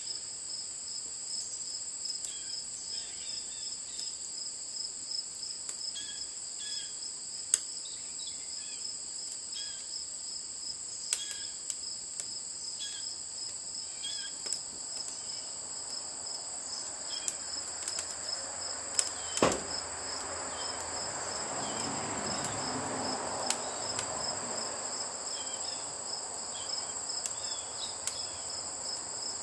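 Wood fire crackling in a metal charcoal retort, with scattered sharp pops and one louder pop about two-thirds through, over steady high chirping of crickets. A rushing noise swells and fades around the loud pop.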